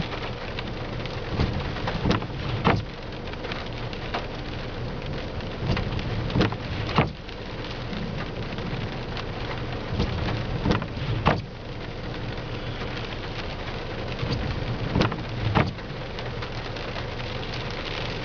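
Heavy rain drumming on a car's roof and windshield, heard from inside the cabin, with a dozen or so scattered sharp knocks of drops striking the glass. A low steady hum from the idling car runs underneath.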